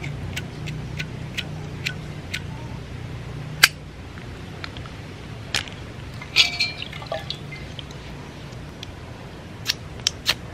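Water dripping off a wet metal windproof lighter into a glass bowl of water: single sharp drips a half-second to a second apart. About six and a half seconds in there is a short splash with a glassy clink as a hand dips into the bowl, and a few metallic clicks near the end.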